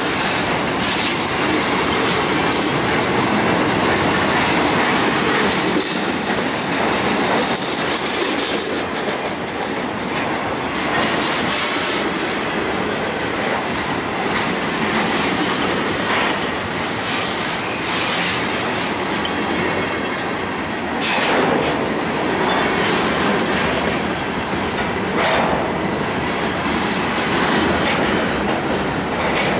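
Freight cars rolling past close by: steady rumble of steel wheels on the rails, with repeated clacks as the wheels cross rail joints, and a faint high wheel squeal about a quarter of the way through.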